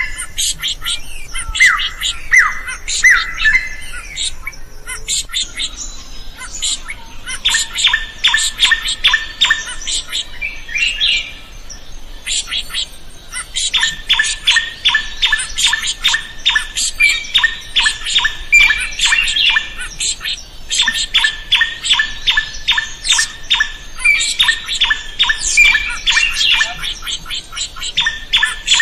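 A drongo singing energetically: harsh, scratchy notes repeated rapidly in long runs, with a few sweeping calls at the start and brief pauses between runs.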